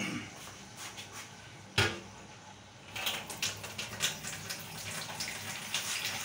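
Beef trotter curry bubbling and sizzling in a steel pot, with a rapid scatter of small pops. A single sharp knock about two seconds in is the loudest sound.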